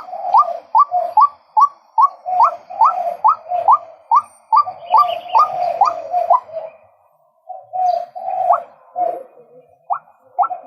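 Male white-breasted waterhen calling: a fast series of short rising notes, two or three a second, that breaks off briefly about seven seconds in and then starts again.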